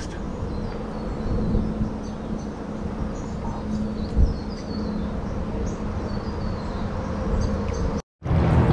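Outdoor creek ambience: a steady insect buzz with scattered short high chirps. There is a single low thump about four seconds in, and the sound cuts out briefly near the end.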